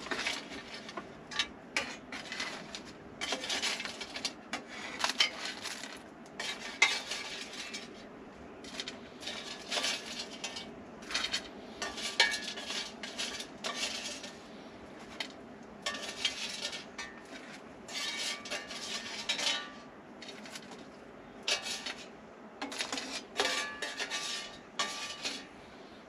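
Metal cutlery clinking and scraping against a plate and dish in irregular clusters of short clatters, as the freshly air-fried chips are handled.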